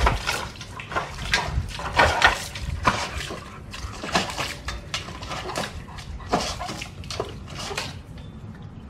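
A large dog slapping its front paw into a metal water bowl again and again, splashing water out with each stroke. The splashes come irregularly, about one to two a second, and stop near the end.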